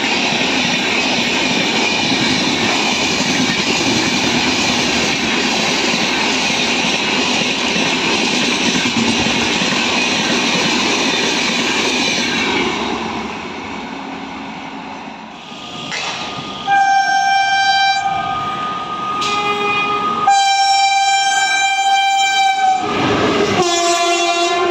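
Express train coaches passing at high speed, a steady rushing rumble that fades away after about twelve seconds. Then an electric locomotive's horn sounds in four loud multi-note blasts.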